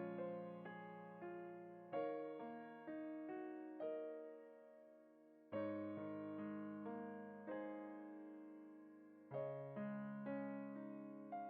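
Soft background piano music: slow chords and notes struck and left to fade.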